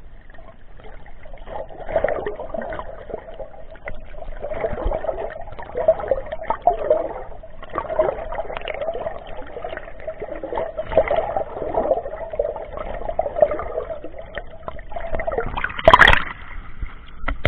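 Sea water sloshing and churning around a camera in a waterproof housing, muffled and surging unevenly. Near the end there is one brief, loud splash or knock.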